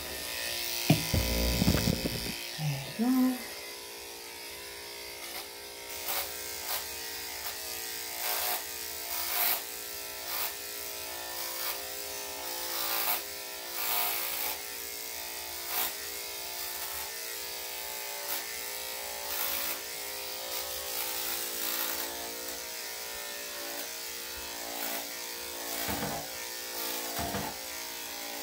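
Corded electric dog-grooming clippers with a #7 blade running with a steady buzz as they shave the dog's coat. Short strokes sound every second or two as the blade passes through the fur. A louder low rumbling noise comes in the first two seconds.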